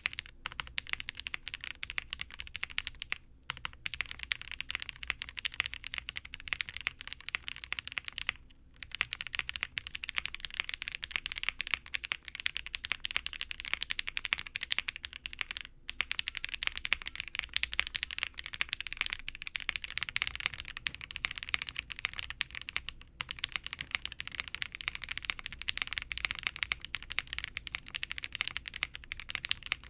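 Fast typing on a mechanical keyboard fitted with Cherry-profile keycaps, a dense run of key clacks. The runs break off briefly three or four times as the keycap sets being compared are swapped.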